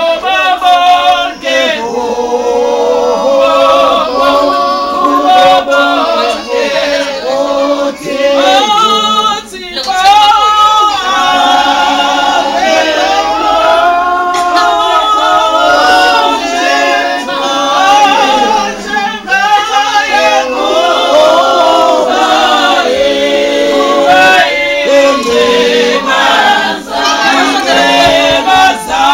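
A choir of several voices singing without instruments.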